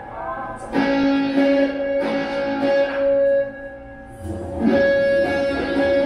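Live guitar music played in the room, with long held melody notes over the guitar and a short lull in the middle.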